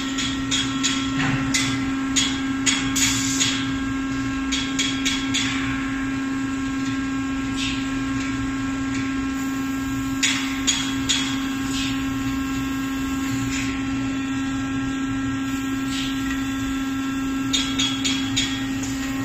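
Robotic tube cutting and bending cell running: a steady machine hum with a few steady higher tones, broken by clusters of sharp metallic clicks and clanks from the tube handling, in the first few seconds, around halfway and near the end.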